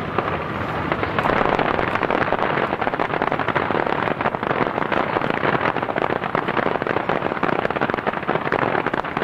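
Crackling fireworks: a dense, sustained hail of tiny pops from crackle-effect shells, sounding much like heavy rain, building over the first second.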